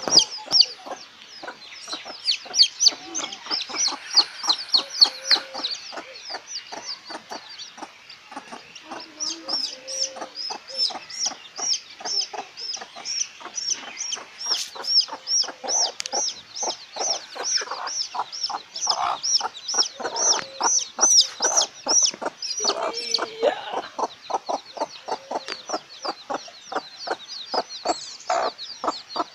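Domestic chicks peeping rapidly and without pause in a shrill, steady stream: the distress calling of a chick kept apart from its mother hen. The hen in the cage answers with low clucks, most of them in the middle of the stretch.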